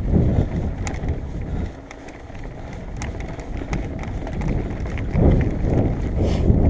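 Mountain bike riding on a dirt trail: gusty wind rumble on the microphone and tyre noise on dirt and gravel. Scattered sharp clicks and rattles come from the bike and stones. The sound eases briefly about two seconds in and builds again near the end.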